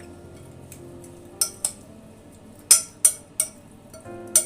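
Cutlery clinking against a dish about six times while food is being served, the last clink the sharpest, over steady background music.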